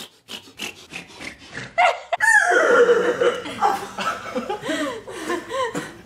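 A man making silly mouth noises: a quick run of clicks and pops, then from about two seconds in a string of short yelping, rising-and-falling vocal sounds mixed with laughter.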